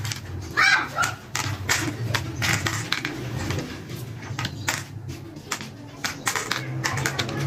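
Congklak pieces clicking as they are dropped one at a time into the hollows of a plastic congklak board, in an irregular run of light clicks.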